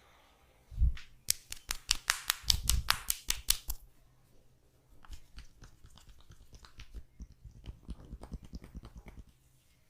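Massage tapping by hand: a thump, then a fast run of sharp slaps about six a second for a couple of seconds, then after a short pause a softer, quicker patter of taps that stops shortly before the end.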